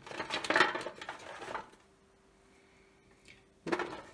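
Small metal stamps clattering and clinking as they are rummaged through and handled, a dense rattle for about a second and a half, loudest about half a second in, then quiet.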